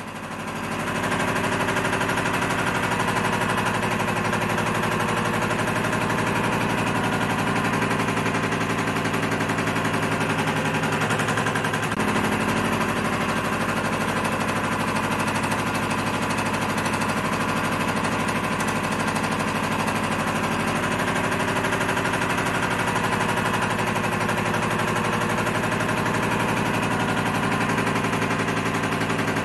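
Home-built rhombic-drive Stirling engine running steadily with a fast, even mechanical clatter; it comes up over the first second. The new roller bearings sound quite rough: the engine is not yet run in or balanced after fitting heavier connecting rods.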